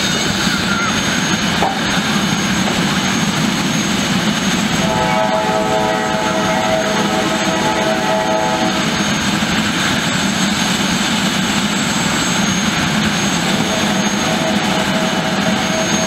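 Eurocopter EC130 B4 helicopter's turbine engine running steadily on the helipad, with a constant high whine. About five seconds in, a separate steady hum of several tones comes in and holds for about four seconds.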